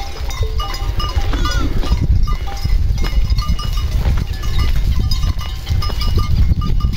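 Wind rumbling on the phone microphone, with goats calling faintly in the background among many short, high clinking notes.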